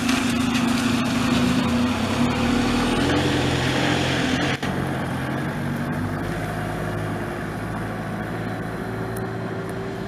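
A single-decker bus's diesel engine pulling away and accelerating, its note stepping up over the first few seconds with tyre hiss on the wet road. The sound breaks off abruptly about halfway through and gives way to a steadier, quieter engine hum of a bus driving away.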